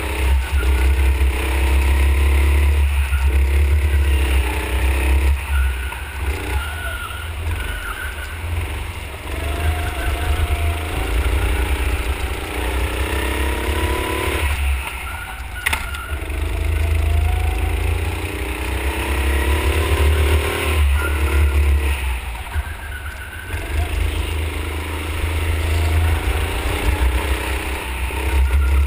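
A 9 hp go-kart engine heard from onboard, lapping a track: its pitch climbs along each straight and drops sharply into each corner, over a heavy low rumble. A single sharp knock comes about halfway through.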